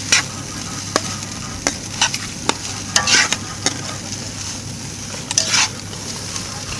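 A large pan of fried rice with long beans sizzling as it is stirred. The utensil scrapes and knocks against the pan at irregular intervals over a steady sizzle.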